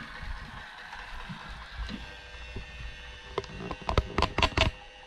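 iRobot Roomba j7 robot vacuum starting a cleaning run: its motors hum steadily with a high whine. A quick run of sharp clicks and knocks comes about three and a half to four and a half seconds in.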